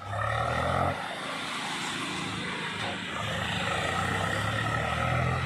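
Heavy diesel engine of earth-moving machinery running steadily, a little louder in the first second.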